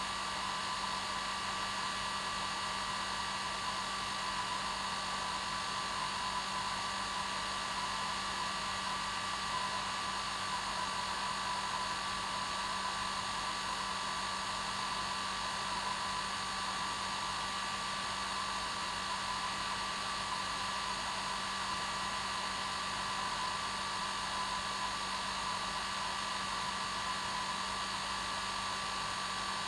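Hair dryer running steadily at one setting, a constant airy rush with a steady motor hum and whine.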